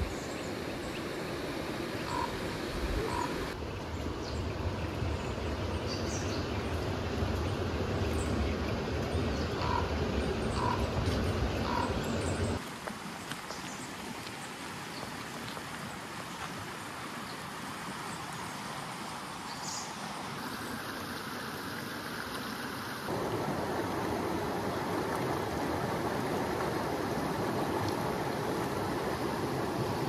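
Shallow mountain stream running over rocks, a steady rush of water that shifts abruptly in loudness and tone several times as shots change, with a few short high chirps here and there.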